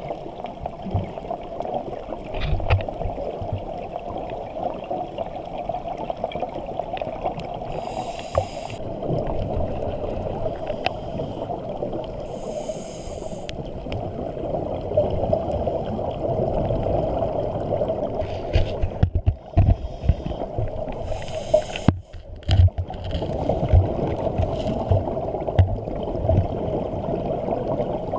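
Muffled underwater sound heard through a GoPro's waterproof housing: a steady dull rush with low thuds, and scuba regulator exhaust bubbles gurgling past in several short bursts.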